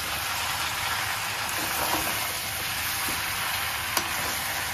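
Chicken frying dry in masala in a pan, sizzling steadily while a spoon stirs it and scrapes against the pan. A sharper knock of the spoon comes about four seconds in.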